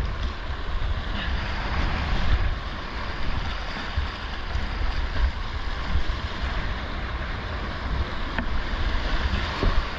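Creek whitewater rushing and splashing steadily around a kayak, under a low rumble of buffeting on the camera's microphone.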